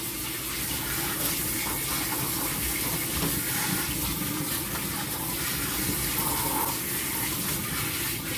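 Handheld shower sprayer running steadily, water spraying through a wet dog's coat and splashing into the tub as the shampoo is rinsed out.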